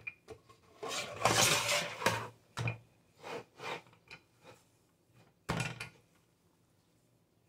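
Wooden rolling pin rolled back and forth over dough on a silicone baking mat, the pin and hands rubbing and sliding: one long stroke about a second in, then several shorter strokes about every half second, and a sudden louder stroke about five and a half seconds in.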